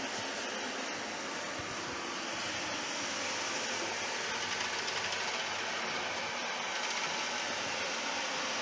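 ILIFE A40 robot vacuum cleaner running, a steady whirring hiss of its suction fan and brushes that grows slightly louder after about three seconds.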